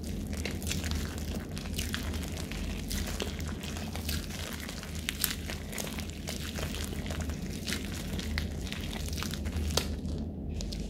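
Sticky, stringy homemade slime of glue and shaving-cream foam being kneaded and pulled apart by hand: a continuous run of small wet crackles and sticky pops. The slime is very sticky and stringy.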